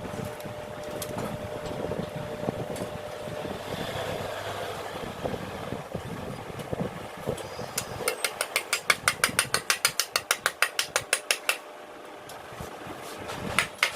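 A low mechanical rumble for the first half. Then a ratchet wrench clicks rapidly and evenly, about eight clicks a second for some three seconds, with a few more clicks near the end.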